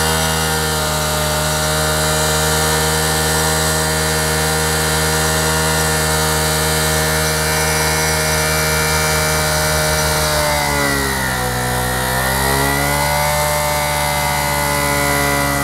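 Honda CD70's single-cylinder four-stroke engine running at steady high revs, its exhaust blowing into a large balloon stretched over the silencer. The revs sag about ten seconds in and climb back up a couple of seconds later.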